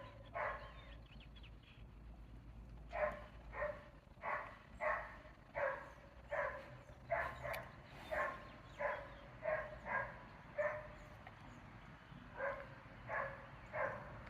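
A dog barking over and over, a bit more than one bark a second, with two short pauses.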